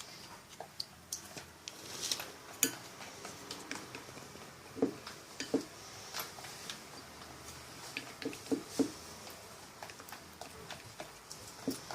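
A utensil clinking and scraping in a bowl as glue for slime is mixed: scattered, irregular small clicks and knocks.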